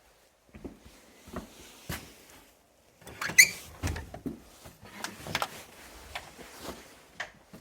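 Irregular knocks and clatter of someone moving about a cluttered workshop, with a short squeak about three and a half seconds in.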